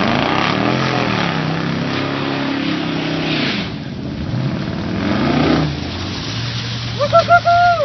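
Vehicle engine revving, its pitch rising and falling, with a rushing hiss of the vehicle driving through standing water, then settling to a low steady run. Near the end comes a brief loud high-pitched sound in a few quick pulses.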